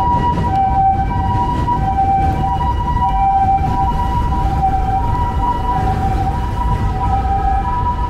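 Doctor car's two-tone hi-lo emergency siren, the Japanese ambulance type, alternating steadily between a higher and a lower tone. Low traffic rumble sits beneath it.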